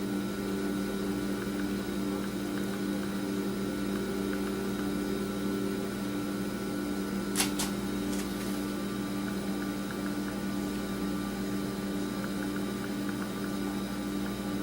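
Steady machine hum made of a few low tones, with a couple of faint clicks about seven and a half seconds in.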